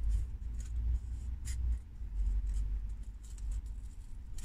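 Hands handling a block of polystyrene foam with a flat metal template held against it: light rubbing and scraping, over a low thumping rumble.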